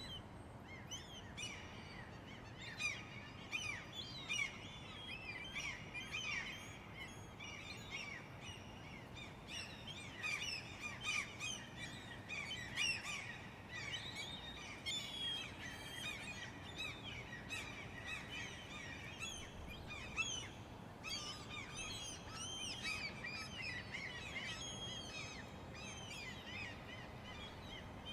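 A flock of seagulls calling at once: many short cries overlapping one another without a break, over a steady low background rumble.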